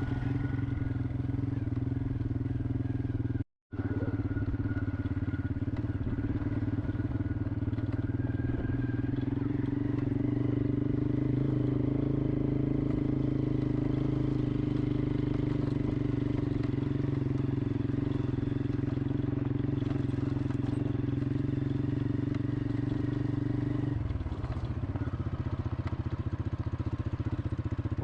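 Vehicle engine running at a steady pace. The sound drops out briefly a few seconds in, and the engine's tone shifts about three-quarters of the way through.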